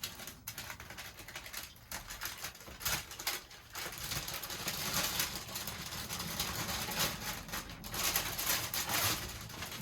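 Masking paper and painter's tape being peeled and torn off a window: dense paper crackling and rustling, busier and louder in the second half.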